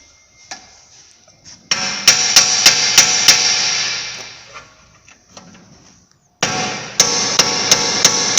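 Hammer blows on the steel front suspension of an Audi A6, knocking at a seized upper control arm and its bolt. Two runs of quick blows, about three a second, start about two seconds in and again near the end, and the metal keeps ringing between the blows and dies away after the first run.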